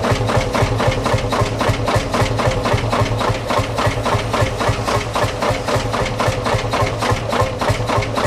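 Vintage farm tractor engine running at a steady idle, with an even, rapid beat of firing pulses.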